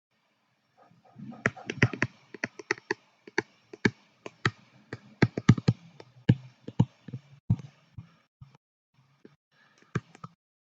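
A string of irregular sharp clicks and taps on a hard surface, dense for several seconds, then a short lull and a few more clicks near the end.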